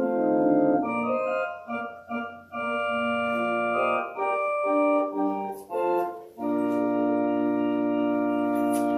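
Organ playing slow sustained chords in short phrases with brief breaks, settling into one long held chord about two-thirds of the way through.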